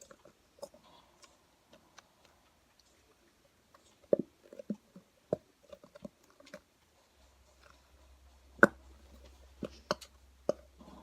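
Irregular small clicks and short wet squishing pops from mixing a batch of homemade slime and handling its containers. One sharper click stands out about two-thirds of the way through, and a faint low hum comes in shortly before it.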